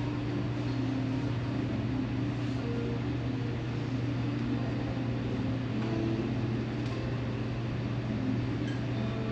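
Steady low drone with soft, held tones that shift in pitch every second or two: quiet ambient relaxation music playing under a room hum.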